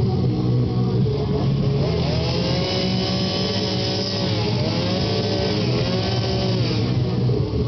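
Two-stroke chainsaw running at high revs during carving, its pitch sagging and recovering twice, around four and six seconds in.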